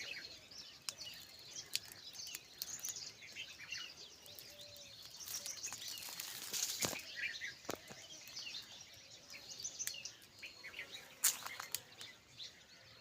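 Small birds chirping repeatedly in short high notes, with a few sharp clicks or knocks in between.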